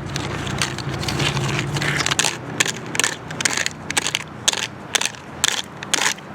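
A toy construction truck being pushed through dry ground, scraping and crunching the dirt in a fast, irregular run of crunches.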